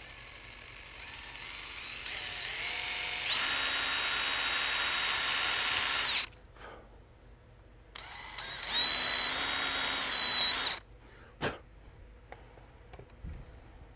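Handheld electric power tool motor whining in two runs. The first speeds up gradually over about three seconds, holds steady, then cuts off about six seconds in. The second is a steady run of about three seconds, and a single sharp click follows it.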